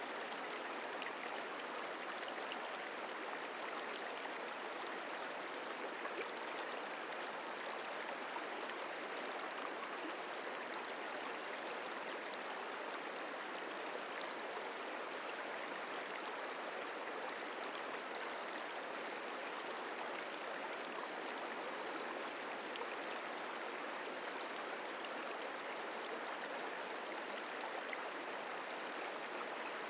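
Merced River flowing over rocks: a steady, unchanging rush of water with no breaks.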